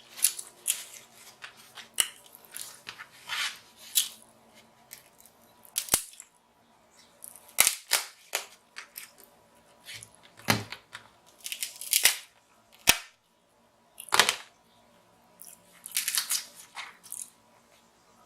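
Close-miked eating of king crab legs: irregular sharp cracks and snaps of the shells being broken open, between short wet smacking and slurping mouth sounds.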